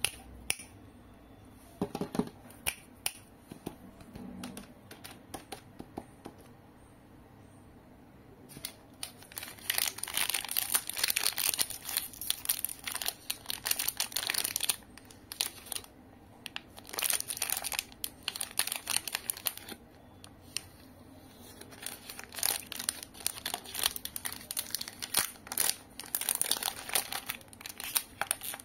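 Cadbury 5 Star 3D chocolate bar wrapper crinkling and being torn open by hand. There are a few light taps and rustles at first, then bursts of crackling from about a third of the way in, broken by two short pauses.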